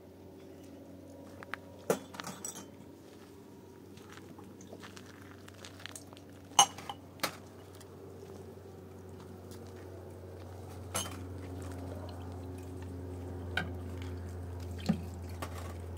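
Dishes and metal utensils clinking now and then, about eight sharp separate clinks, over a steady low hum that slowly grows louder.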